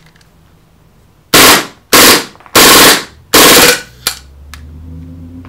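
KWA KZ.61 Skorpion gas blowback airsoft submachine gun firing on full auto, each rapid rattle of shots carrying the snap of the blowback bolt. It fires four short bursts in about two and a half seconds, starting a little over a second in, and then gives a couple of light clicks.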